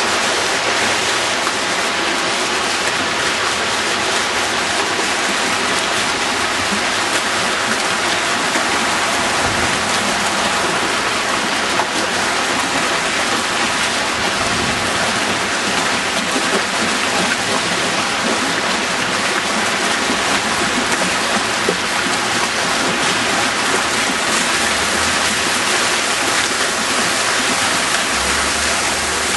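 Fountain water jets splashing steadily into a shallow pool, a continuous rushing spatter.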